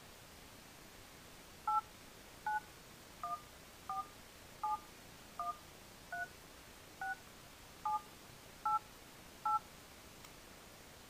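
Smartphone keypad dialing tones: eleven short two-note touch-tone beeps, about one every 0.8 seconds, as a full phone number is keyed in on the dialer.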